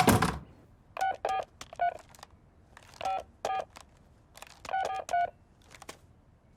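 Telephone keypad tones: about eight short dialing beeps in three quick groups as a number is punched in, after a single knock at the start.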